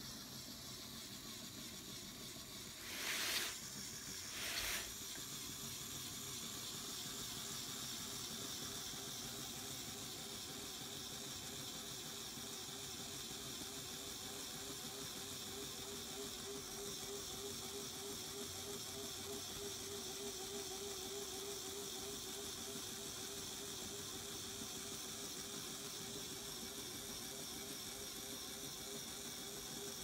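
Two short hisses of compressed air from a LEGO Technic pneumatic system about three and four and a half seconds in, over a steady faint hiss and low hum.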